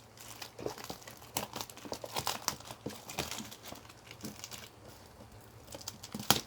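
Plastic wrap and card-box packaging being handled and crinkled, with irregular crackles and a sharp, loud crackle near the end.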